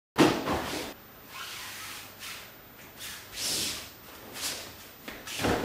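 A thrown partner's body slaps down on tatami mats in a breakfall just after the start. It is followed by the rustle of cotton practice uniforms and bare feet sliding on the mats as the throw is repeated.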